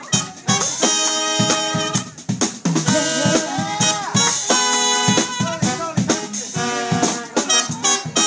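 A live band plays: trombone and saxophone hold sustained horn notes over a drum kit and electric bass guitar, with regular drum hits throughout.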